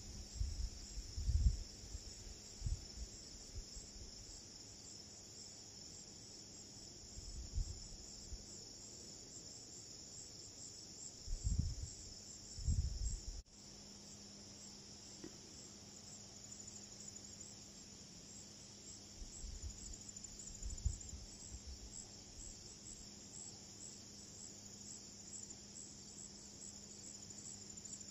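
Steady high-pitched chorus of insects trilling without a break, with low gusts of wind buffeting the microphone now and then.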